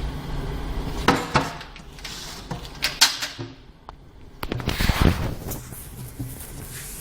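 Sharp clicks and knocks of an engine-oil bottle and the generator's oil filler cap being handled while oil is added, with a brief noisy stretch about five seconds in.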